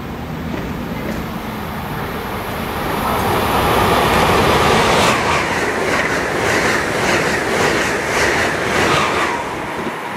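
Amtrak Acela high-speed electric train passing at speed. A rush of noise builds as it approaches, then a quick run of wheel clicks over the rail joints as the cars go by, easing off near the end.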